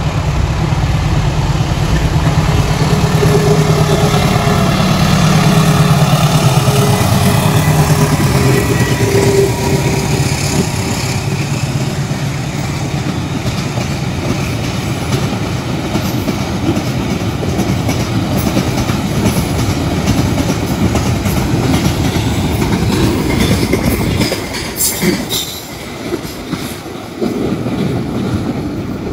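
A diesel freight locomotive hauls a train of about 20 tank wagons past at low speed, slowed by the heavy load. The locomotive's engine drone is loudest at the start and fades as it goes by. Wheels then squeal thinly and click over the rail joints as the wagons roll past, with the clicks bunched toward the end.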